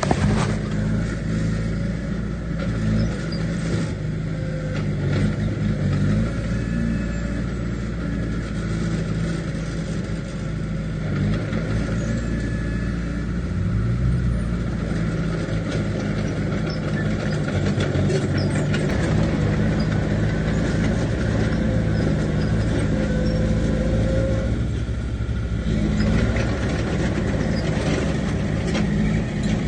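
Diesel engine of heavy earth-moving machinery running steadily, with a brief rise in engine pitch about halfway through.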